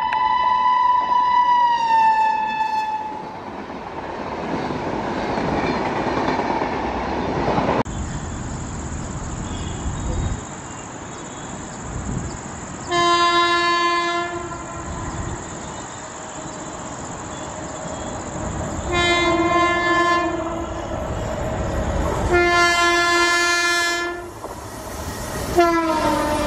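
Indian Railways electric locomotive air horns and passing express trains. A long horn blast drops in pitch as the first locomotive passes about two seconds in, and the train's running noise follows. After a sudden cut, a second locomotive sounds three horn blasts as it approaches, and a fourth drops in pitch as the train passes near the end.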